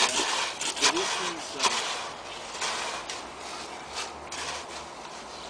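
Spade scraping and crunching into gritty growing medium of crushed brick and volcanic rock. Several sharp scrapes in the first two seconds, then fainter scraping.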